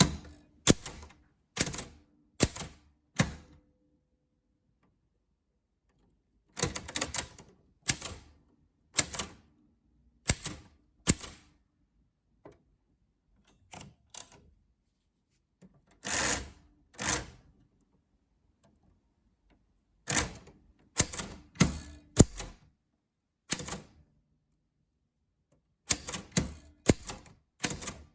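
Typewriter keys being struck in short, uneven runs of a few strokes each, separated by pauses of a second or more between words.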